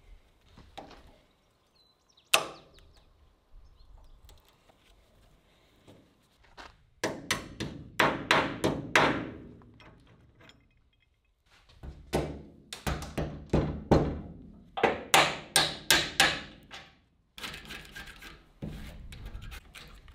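Hammer blows on steel while the old padlock latch is taken off a steel shipping container door. A single sharp strike comes about two seconds in, then two runs of quick, ringing blows at about three a second.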